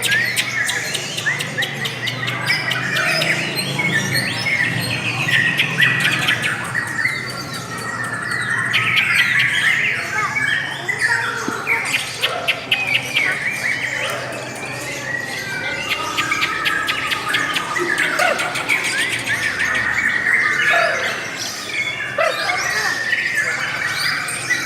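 Lovebirds chattering and singing without a break: a long run of high chirps and trills, with rapid ticking stretches and squawks mixed in.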